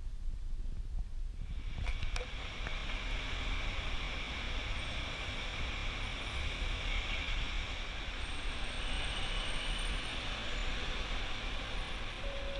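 Low rumble inside a car, then from about a second and a half in, a steady hiss of road traffic on wet pavement with a low rumble underneath.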